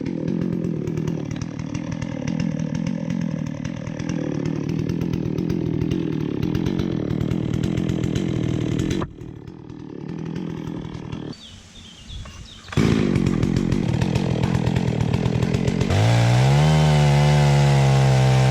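Holzforma G660 two-stroke chainsaw ripping a log lengthwise in a chainsaw mill, running steadily under load. About nine seconds in the engine drops off, then revs back up and runs at high revs near the end.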